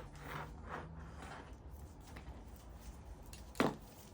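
Handling noise from diesel heater parts and wiring: soft rustles and scrapes, then one sharp knock about three and a half seconds in.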